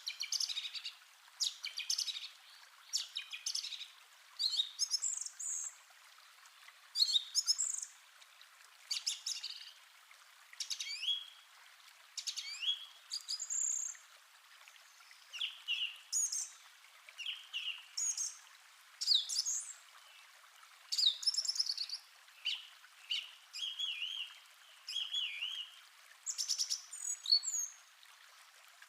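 Forest birdsong: birds singing short, high chirping and whistled phrases, about one a second, some with quick rising and falling notes, over a faint steady hiss.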